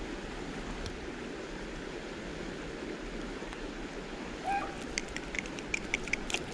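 Steady rush of shallow flowing creek water, with a cluster of small sharp clicks and a brief squeak in the second half.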